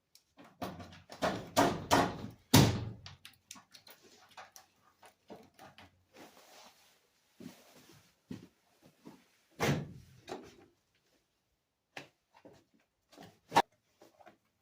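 Door card being pressed onto a car door, its retaining pins knocking and snapping into the holes in the door: a run of irregular knocks and thumps, heaviest in the first few seconds, with a couple of sharp hits later.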